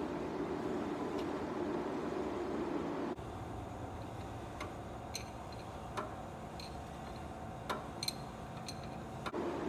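A steady shop hum, then a handful of light, scattered metallic clicks and taps as parts and tools are handled while fitting a new brake master cylinder.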